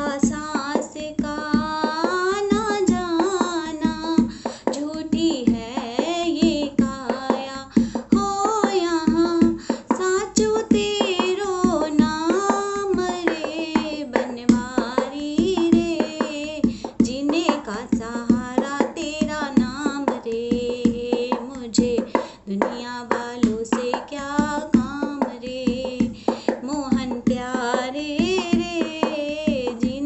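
Woman singing a Hindi devotional bhajan to Krishna, solo voice with a wavering, ornamented melody, over a steady percussive beat.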